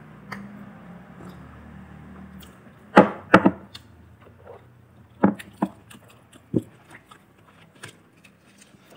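Crunchy bites of crispy fried chicken, close and sharp: a loud cluster of crunches about three seconds in, a few more a couple of seconds later, then fainter ones.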